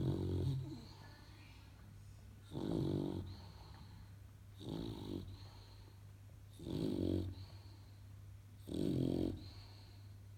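English bulldog puppy snoring, one snore about every two seconds, five in all, over a steady low hum.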